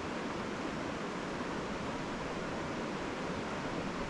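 Steady rush of a mountain river's running water, an even wash with no breaks.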